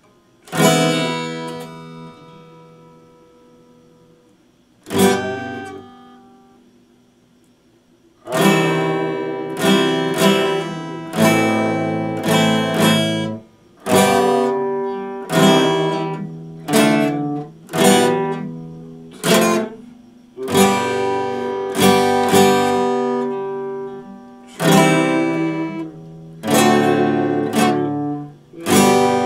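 Epiphone acoustic guitar strummed: a single chord left to ring out, then another a few seconds later, then a steady rhythm of strummed chords for the rest of the time.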